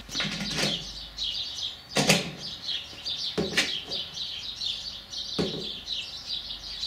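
Birds chirping steadily throughout, broken by about four sharp clicks and knocks, the loudest about two seconds in, as the side mirrors on a Piaggio Ape three-wheeler are handled and swung into position.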